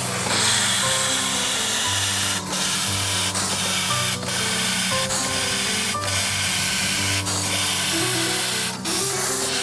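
Steam hissing steadily out of the open cylinder drain cocks of a two-cylinder piston-valve steam engine, blowing water out of the cylinders so they cannot hydraulic-lock. The hiss breaks off briefly a few times. Background music plays under it, its notes changing about every half second.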